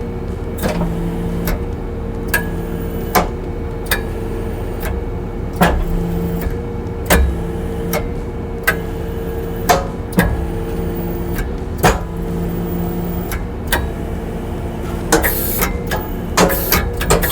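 Kubota skid steer's diesel engine running steadily while its hydraulics drive the tree spade's blades, with a hum that swells and drops as the hydraulics take load. Sharp clicks come about once a second and quicken near the end.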